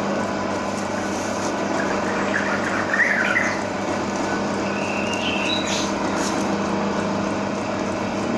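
Steady mechanical hum with a constant low tone, broken by a few short high chirps about three seconds in and again between five and six seconds in.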